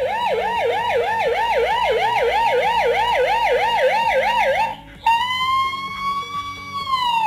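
Siren sounding a fast up-and-down yelp, about three sweeps a second, then after a brief break a single long wail that rises slightly and falls away near the end.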